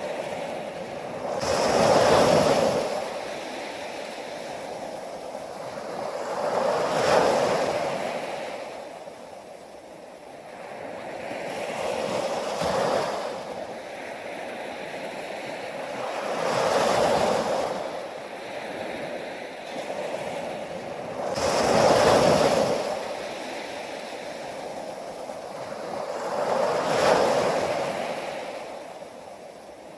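Ocean surf: waves breaking and washing in, one loud surge about every five seconds over a steady hiss of water.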